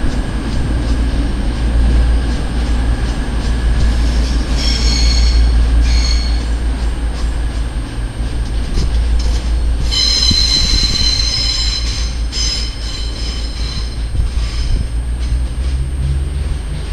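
Diesel train moving through a station with a steady low rumble, its wheel flanges squealing on the rails: a short squeal about five seconds in, and a longer, louder one from about ten seconds in.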